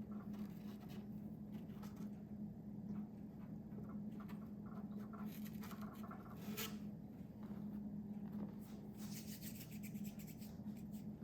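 Faint scratching and small clicks of close hand work, scattered irregularly, with one sharper click past the middle and a run of fine ticks near the end, over a steady low electrical hum.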